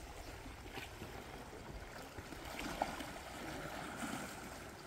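Small waves lapping and washing against shoreline rocks on a calm sea, a low, even wash of water.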